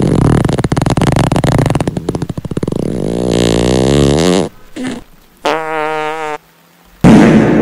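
A long, loud fart sound effect, buzzing and then sliding in pitch, followed by a shorter fart with a wavering pitch. Near the end, a clap of thunder and steady rain start.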